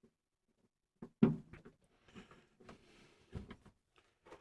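A sharp metallic knock about a second in, then scattered light clicks and rattles and a second knock: hands handling screws and sheet-metal parts while refitting a part inside a furnace cabinet.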